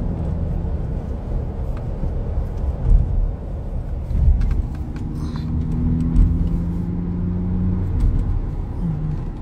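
Inside a moving car: steady low engine and road rumble while driving, with a few short low thumps about three, four and six seconds in.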